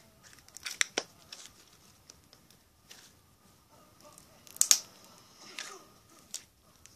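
Slime being stretched and squeezed between the hands, giving off scattered sticky clicks and pops, the loudest a little past halfway.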